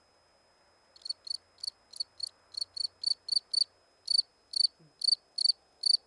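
Field cricket singing: short, sharp chirps repeated evenly about three times a second, starting about a second in.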